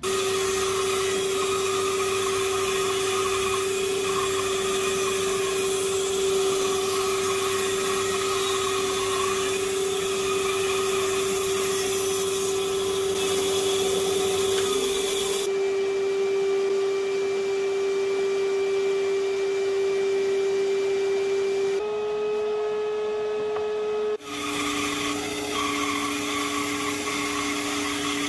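Band saw running and cutting through log sections and a bark-edged wood slab: a steady hum with the blade rasping through the wood. The sound shifts abruptly a few times between cuts.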